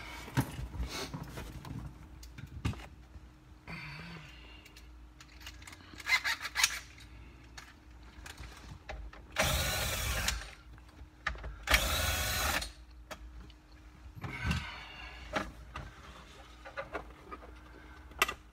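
Cordless drill-driver running in two bursts of a second or so each, about a second apart, on the screws while the factory DVD player is taken out of the dash. Scattered clicks and knocks of handling come before and after.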